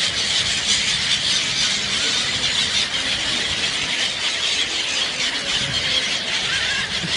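A large flock of birds calling all at once while being fed fish: a dense, unbroken chorus of high-pitched, squealing calls overlapping one another.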